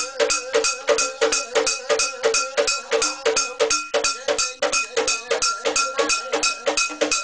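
Fast, steady beat of struck metal percussion, about five strokes a second, each stroke ringing, accompanying a Mentawai shamans' ceremonial dance.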